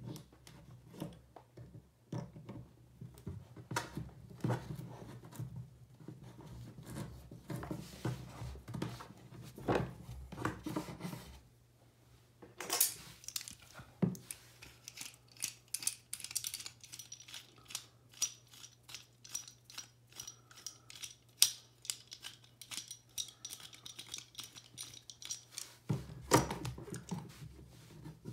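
Hands working a SharkBite push-fit valve and fittings onto a pipe stub: a long run of small clicks, taps and scrapes of plastic and metal being handled and pushed together.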